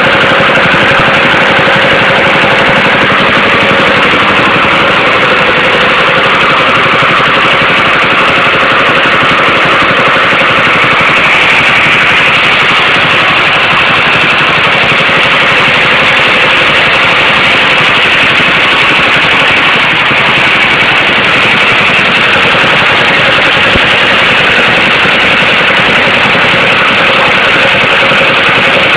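Diesel engine running steadily and loud.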